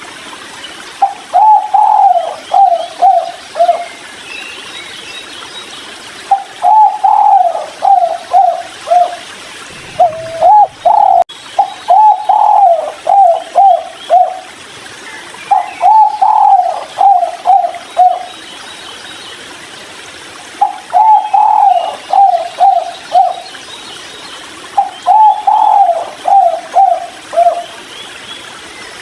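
Spotted dove (tekukur) cooing its 'kuk 3' call: about six phrases, each a run of several short rising-and-falling coos lasting two to three seconds, separated by pauses of a second or two. Faint high chirps of other birds sound in the background.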